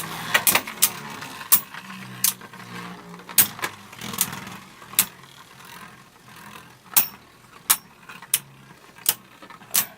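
Two Beyblade Burst spinning tops, Minaboros and Genesis Valtryek, spinning against each other in a plastic stadium: a low whir that fades as they spin down, broken by sharp clacks of the tops striking each other and the stadium, about one a second in the second half. This is a stamina contest, the tops slowing toward the end of the battle.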